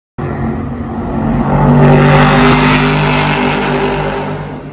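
Factory Five Type 65 Daytona coupe's Ford Coyote V8 race engine running at speed as the car passes on the track. It is loudest about two seconds in, then slowly fades.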